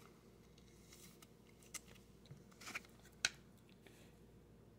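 Thin clear plastic card sleeve crinkling as a trading card is slid into it: a few faint, brief rustles and ticks, the loudest a little over three seconds in.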